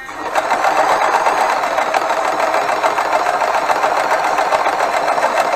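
Frister & Rossmann 502 semi-industrial sewing machine running at a steady speed, stitching a zigzag seam through layers of fabric: a fast, even clatter of the needle mechanism that gets going right at the start.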